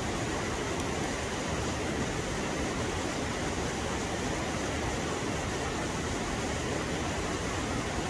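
Steady, even rushing of a mountain stream's flowing water in a snowy valley.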